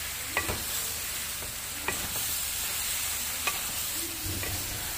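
Eggplant chunks sizzling steadily as they fry in a metal pot while a wooden spatula stirs them, with a few light knocks of the spatula against the pot.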